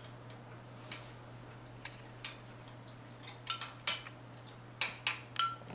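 Metal spoon clinking and scraping against a small glass bowl while stirring a sauce to dissolve the sugar granules. About nine irregular light clicks, some with a short glassy ring, coming more often in the second half.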